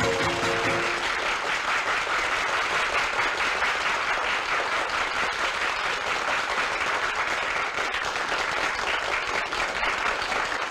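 Large audience applauding steadily, a dense patter of many hands clapping. The last held notes of a music cue die away about a second in.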